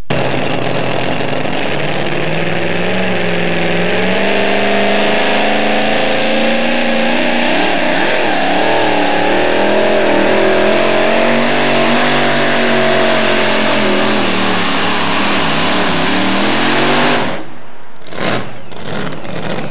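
Two-wheel-drive pulling truck's supercharged engine run flat out during a sled pull, its pitch wavering, then falling near the end before it cuts off suddenly about 17 seconds in.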